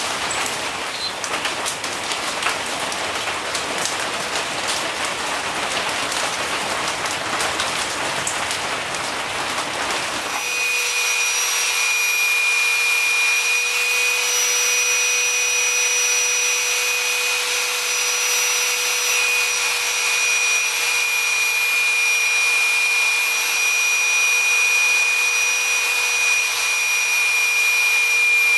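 Rain falling on a metal shed roof, a steady hiss. About ten seconds in it gives way abruptly to a small electric belt sander running with a steady whine.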